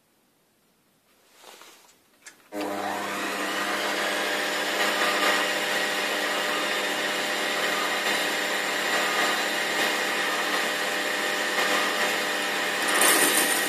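Quantum D250x550 Vario benchtop metal lathe starting up suddenly about two and a half seconds in, then running steadily with a whine from its motor and gear train. A brief rise in hiss comes near the end.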